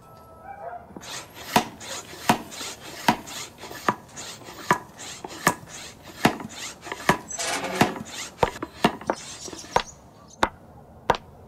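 A steady rhythm of chopping strikes, each a sharp knock, about one every three-quarters of a second.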